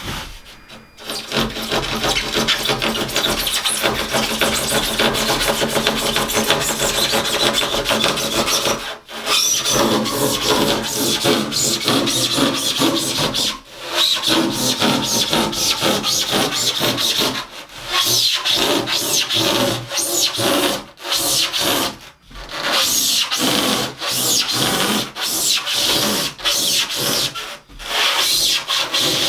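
A saw cutting through a wooden board, going in long stretches broken by several short pauses.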